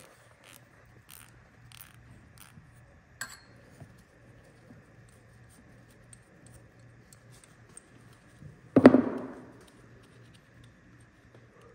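Faint metallic clicks of a ratchet wrench and small fittings being worked loose on an air brake compressor, with one louder clunk of metal about nine seconds in.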